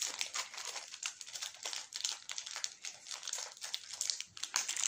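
Plastic wrapper of a Snickers bar crinkling in the hands as it is unwrapped, in quick irregular crackles.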